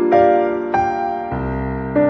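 Background music: a gentle piano or electric piano melody, a new note struck about every half second.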